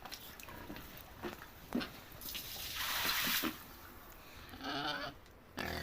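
A hiss of running or sprayed water for about a second, then a short animal call near the end.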